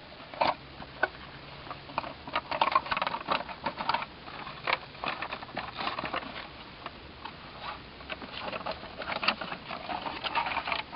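Irregular light clicks and scrapes of nails being worked into the plastic plates of a radiation shield by hand.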